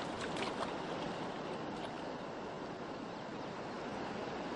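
Steady rush of water from surf and a stream, an even hiss with no pitch to it. A few faint brief sounds stand out in the first second.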